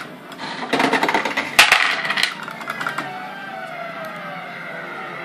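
Coins clattering and rattling in two quick bursts in the first two seconds or so. Then the fruit machine's electronic tones come in, with a few slowly falling pitches.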